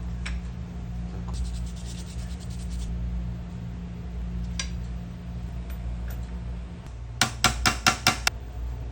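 Small metal clicks and taps from work on brake parts, faint at first and then a quick run of about seven sharp clicks near the end, over a steady low hum.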